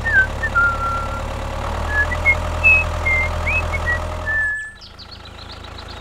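Tractor engine running steadily as the toy tractor drives past, with short high chirps over it; the engine sound drops away about four and a half seconds in.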